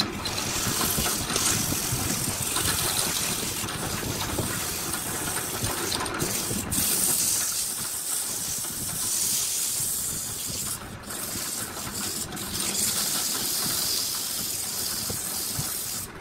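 Sandpaper held by hand against a wooden vase spinning on a wood lathe: a steady hiss of abrasive on turning wood, with a few brief breaks.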